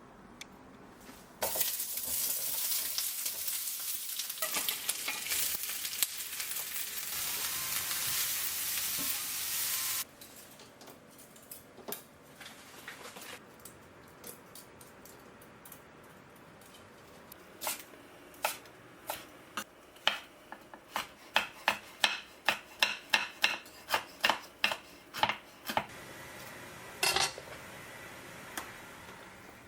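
Food sizzling in a hot frying pan for about eight seconds, cutting off suddenly. Later a run of sharp taps and clinks of a cooking utensil against the pan or dish, about two a second.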